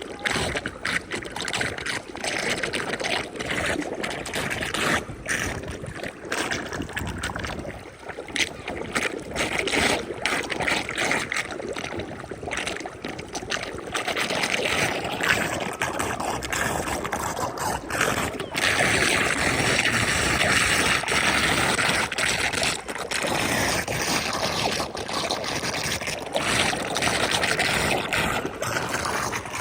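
Floodwater draining into a street drain, trickling and gurgling, with many splashes and knocks through roughly the first half and a steadier rush of water after that.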